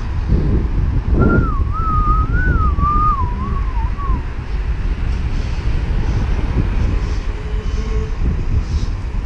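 Wind rumbling on the microphone of a moving bicycle in city traffic, with someone whistling a short wavering tune for about three seconds, starting about a second in.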